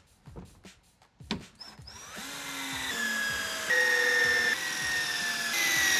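Cordless drill driving screws through the flange of a tub wall panel into the studs. Its motor whine starts about two seconds in and sags in pitch a few times.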